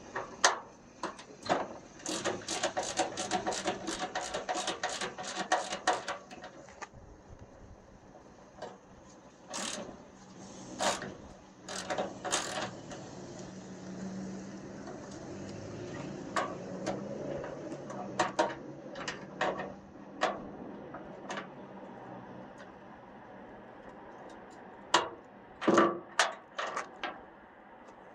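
Hand ratchet turning a T45 Torx bolt on a Ford Ranger tailgate cable mount. It clicks in a quick run of about four clicks a second early on, then in shorter scattered bursts with a few sharper metal clinks near the end.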